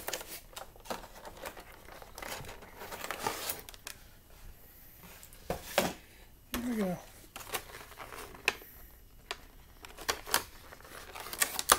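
Cardboard toy box and clear plastic tray being handled and pulled apart: irregular crinkling, tearing and scraping rustles with sharp clicks as the figure is taken out of its packaging. A brief murmur from a man's voice comes about six and a half seconds in.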